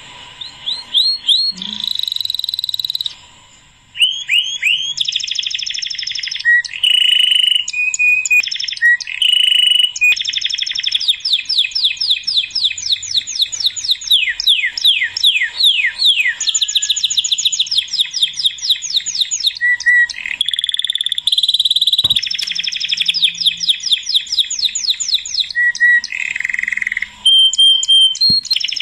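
A songbird singing rapid trills of repeated falling chirps and whistled notes, in sections that start and stop abruptly.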